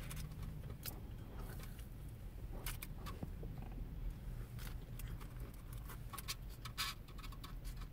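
Quiet eating: scattered soft clicks and rustles as food is handled from a takeout container and chewed, over a low steady hum.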